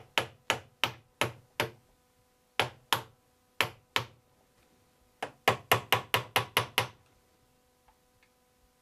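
Tack hammer tapping a square-cut nail, used as a nail set, to drive fine nails home into a wooden wheel hubcap. Sharp taps come singly and in pairs at first, then in a quick run of about nine taps that stops about seven seconds in.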